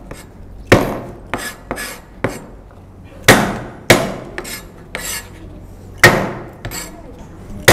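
Kitchen cleaver knocking on a cutting board as shallots are smashed and chopped: about a dozen irregular sharp knocks, a few of them harder.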